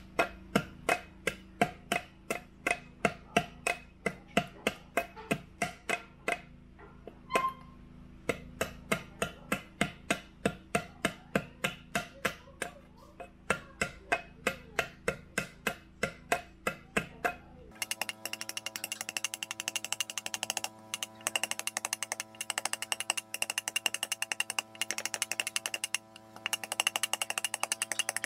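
Heavy chopping knife striking a wooden bowl blank on a stump, about three crisp chops a second as the outside of the bowl is shaped. About two-thirds of the way through the sound changes abruptly to quicker, lighter ticks over a steady hum.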